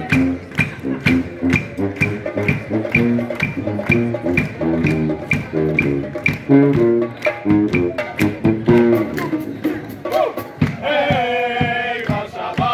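Brass band playing: a sousaphone bass line moving under a steady drum beat, with trombone among the horns, and a long held chord near the end.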